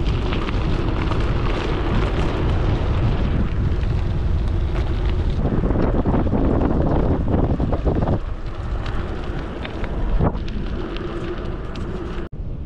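Wind buffeting the microphone of a GoPro on a moving bicycle, a heavy steady rumble, with the bike's tyres running over the road surface. The sound drops out for an instant near the end.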